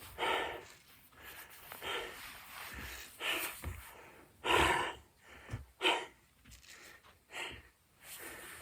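Heavy breathing of a man doing burpees: hard exhales and gasps about every second and a half, from the effort of the repeated reps.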